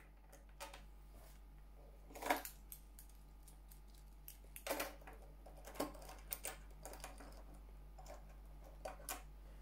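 Watch bracelets of wood and metal links clicking and clinking as the watches are handled and set down on a wooden table: a scatter of short, sharp clicks, the loudest about two seconds in.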